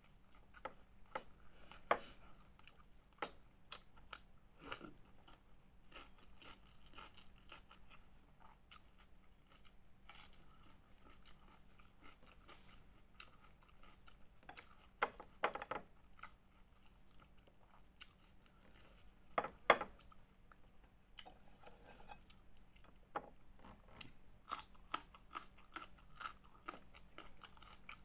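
Close-up eating sounds: chewing and crunching of fried fish and raw vegetables such as young ginger and long beans, with scattered small clicks and smacks, and a few louder crunches about halfway through.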